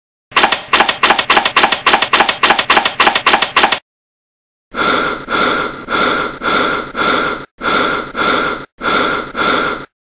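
Soundtrack of a short art video: a rapid run of sharp repeated pulses, about six a second, then after a short break a slower series of longer pulses, each with a steady high tone, about one and a half a second.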